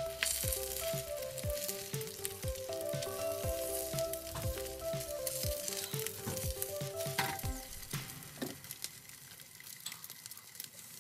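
Eggs sizzling as they fry in a nonstick pan, with small clicks and scrapes of a spatula as they are turned over. A simple background melody plays under it and stops about two-thirds of the way through.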